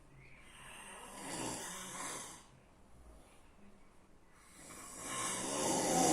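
A sleeping person snoring: two long snores about four seconds apart, the second louder than the first.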